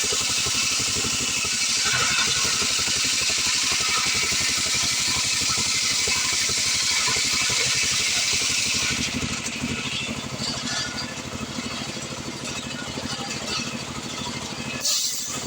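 Stihl 070 two-stroke chainsaw running at high revs, cutting through acacia hardwood on a chainsaw mill. About nine seconds in, the sound turns a little quieter and less hissy, with the engine still running.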